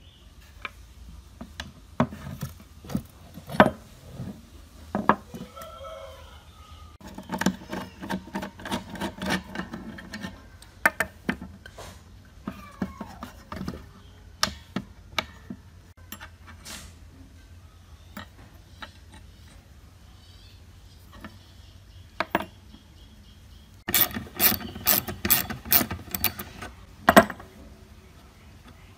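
Small metal parts of a rusty staple gun clinking and knocking as they are handled on a wooden bench. Two runs of rapid clicking from a socket ratchet wrench turning nuts come, one several seconds in and one near the end.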